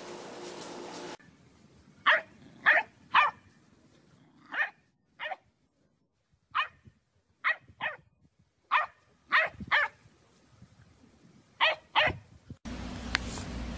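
Dog barking: about a dozen short, sharp barks, coming in bunches of two or three with pauses between.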